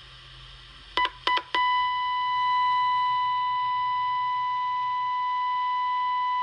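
A steady test tone from the Channel Master 6514 transistor radio's speaker: the audio modulation of a 455 kHz test carrier injected at the converter transistor, coming through the radio's IF and audio stages strongly. The tone cuts in twice briefly about a second in, then holds steady.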